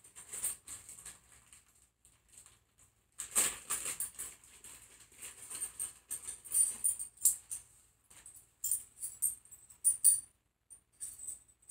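A small set of hex and Torx keys being unpacked and handled: plastic packaging crinkling and small metal keys clicking and rattling in irregular bursts with short pauses.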